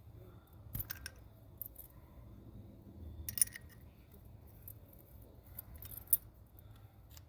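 A few sharp metallic clicks and clinks from hand tools and parts being handled during brake work, one about a second in, a louder cluster around the middle and another near the end, over a low steady background hum.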